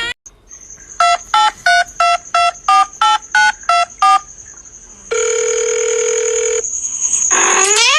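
A quick run of about a dozen short electronic beeps of varying pitch, like phone keypad tones, then one steady electronic tone held for about a second and a half. Near the end comes a rising cry, the start of a cat's meow.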